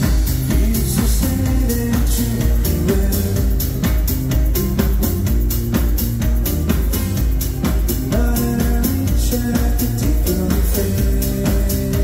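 Live band music through a concert PA, heard from the crowd: a steady drum beat over sustained bass, with keyboards and electric guitar.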